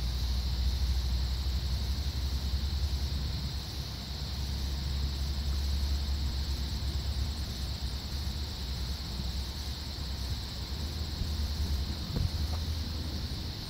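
Steady high-pitched insect chorus of crickets or similar, with a low rumble underneath.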